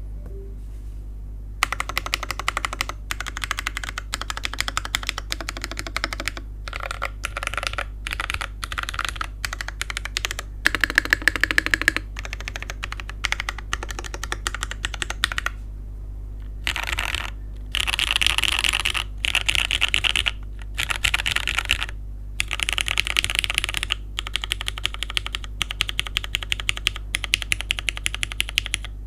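Typing on a Daring Run DR-70F mechanical keyboard with broken-in, lubed and spring-swapped Cherry MX Black linear switches in a polycarbonate plate, gasket mount, with GMK keycaps. It is a fast stream of keystrokes that starts about a second and a half in and comes in runs with short pauses, over a steady low hum.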